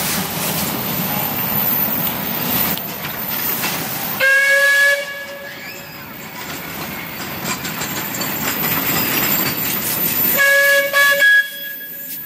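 Steam locomotive's whistle sounding two blasts, the first about four seconds in and the second, about a second long, near the end, with a steady hissing noise between them.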